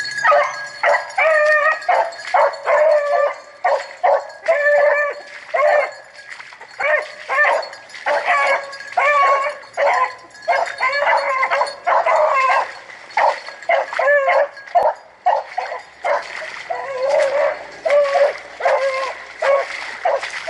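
Rabbit hounds baying in repeated drawn-out bawls, one or two a second without a break: the dogs trailing a swamp rabbit.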